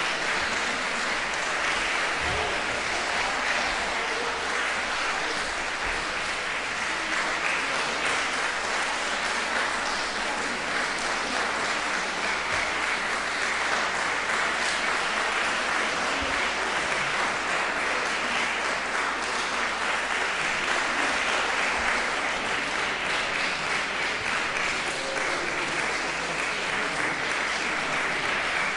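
Audience applauding steadily, a dense, even clapping that neither swells nor fades.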